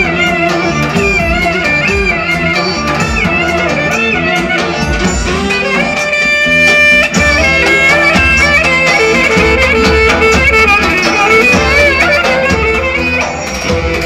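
Loud Roman havası dance music, a wavering, ornamented lead melody over a drum beat; about six seconds in the lead holds one long note for about a second before the ornamented line resumes.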